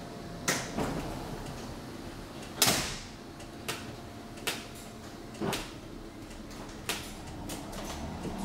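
The sliding doors of a Hamburg U-Bahn car closing, with a sharp knock about two and a half seconds in. Lighter clicks and knocks of the car interior follow every second or so over a faint steady hum.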